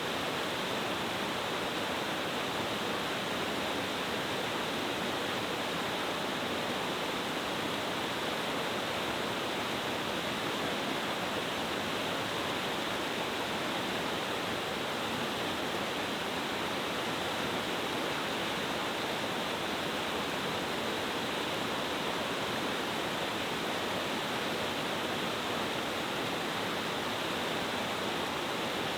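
Cascading mountain-stream waterfall, water falling over several rock steps with a steady, even rush.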